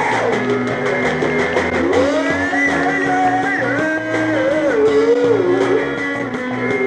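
Live rock band music, an instrumental passage: a melody line bending and wavering over steady held chords.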